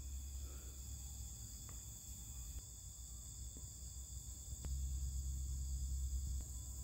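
Steady high-pitched chorus of insects, like crickets, with a low rumble underneath that grows louder about two-thirds of the way through.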